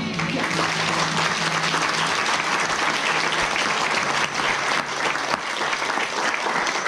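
Audience applauding, dense clapping from many hands holding steady. A low held note lingers underneath for the first two seconds, then fades.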